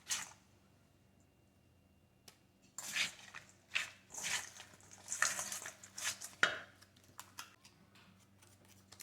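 Caesar salad kit lettuce and packaging being handled, giving crisp rustling and crinkling in a run of short bursts from about three to six and a half seconds in, after a quiet first few seconds.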